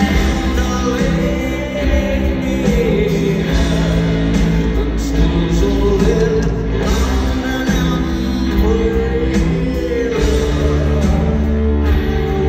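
A live rock band playing loud in an arena, with a male voice singing over guitars, drums and bass, heard from far up in the stands of a large hall.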